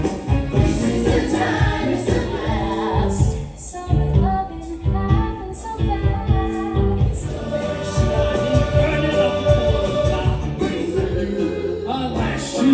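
Musical theatre cast singing an ensemble number, with many voices together over a band with a strong steady beat.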